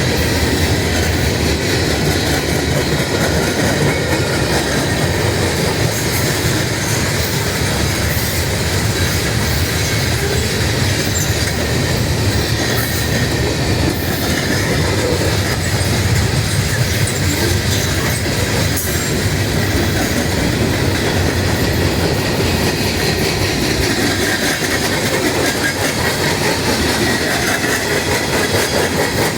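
A train's cars rolling past with a steady, unbroken clatter of wheels on the rails, and a faint high squeal from the wheels.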